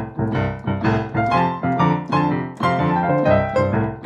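Boogie-woogie piano played on a digital piano: a rolling left-hand bass pattern under a quick right-hand finger run that falls down the keys to a low anchoring note, in a steady fast rhythm.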